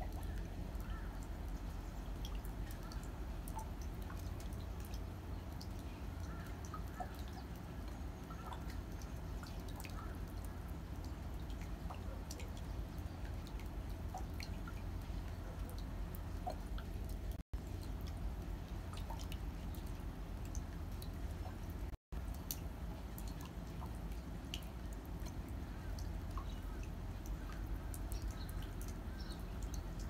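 Light winter rain: scattered drops ticking and dripping on pots and paving, over a steady low rumble. The sound cuts out for an instant twice.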